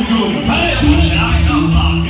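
Loud dance music with a steady heavy bass beat and sustained melodic notes, played over a sound system.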